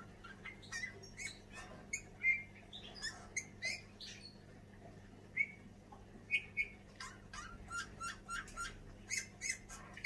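Male Eurasian bullfinch singing: a string of short squeaky and whistled notes with small clicks, pausing for about two seconds around the middle before going on.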